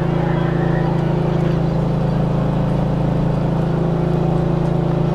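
A steady low motor drone with an unchanging pitch, running evenly throughout.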